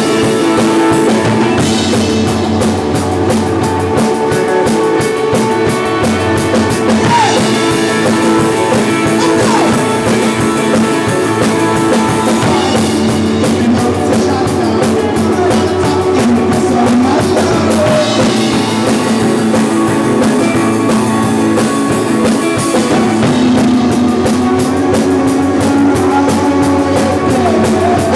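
Rock band playing live: electric guitar, electric bass and drum kit together, loud and steady.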